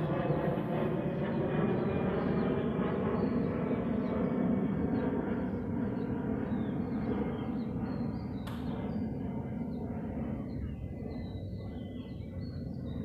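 A steady drone with several pitch lines, like a running engine, slowly fading over the last few seconds. There is a single sharp click about eight seconds in, and faint bird chirps in the later part.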